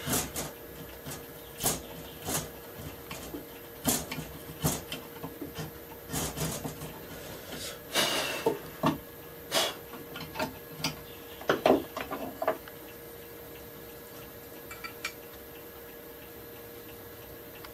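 Hand tools working a wooden part of a handmade rabbet plane: irregular sharp knocks, taps and short scraping strokes on wood for about twelve seconds, then only a few faint ticks.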